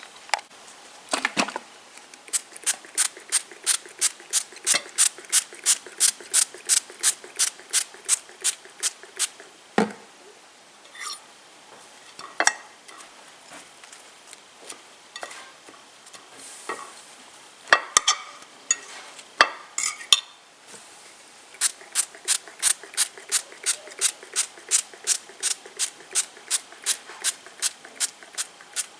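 A kitchen utensil clinking against a bowl or dish in a steady rhythm of about four strokes a second, in two long runs with a few single knocks between them.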